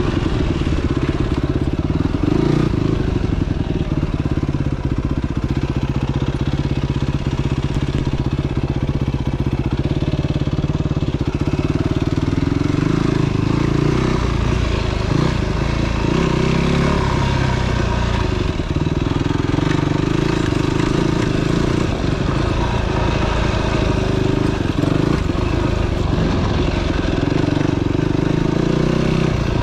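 Dirt bike engine running, heard from on the bike, its pitch rising and falling again and again as the throttle is opened and closed along the trail.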